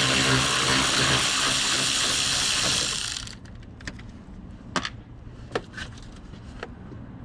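Cordless power ratchet spinning out a 10 mm bracket bolt: a steady motor-and-gear whir that stops about three seconds in. A few light metallic clicks and taps follow.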